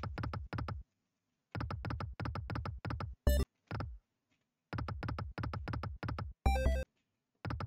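Sound effects of the Flaming Hot Extreme video slot during free spins: the reels spin with runs of rapid, even electronic ticking, stopping and starting again several times. A short electronic win chime sounds about three seconds in, and another near the end as line wins pay out.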